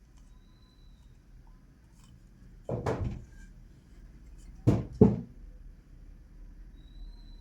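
Three knocks of hard objects being handled and set down: a duller knock about three seconds in, then two sharp knocks in quick succession about two seconds later.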